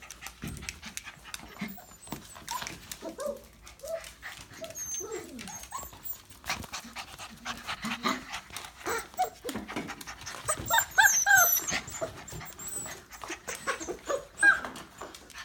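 F1b goldendoodle puppies squeaking and whimpering in many short, high calls over small clicks and scuffling, busiest and loudest past the middle.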